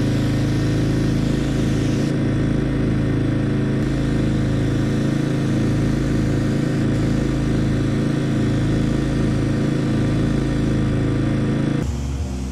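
Paint sprayer's motor and pump running steadily, with a regular pulsing about once a second, while the spray gun coats the shed boards. The sound cuts off abruptly near the end and a different, lower engine sound takes over.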